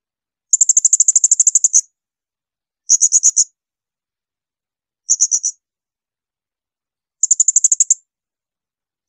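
Blue-crowned hanging parrot (serindit) giving shrill 'tembakan' calls: four quick bursts of rapid, very high-pitched notes, the first and longest about a second and a half, with silent gaps between.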